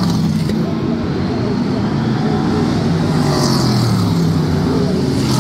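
V8 Hotstox oval-racing stock car engines running at race pace, their pitch rising and falling.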